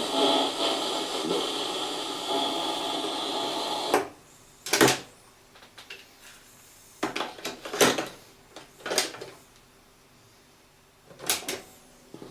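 Sanyo M 9922LU radio-cassette recorder: a dense, noisy sound from the set stops abruptly about four seconds in. About half a dozen sharp mechanical clicks and clunks follow, as its keys and controls are worked.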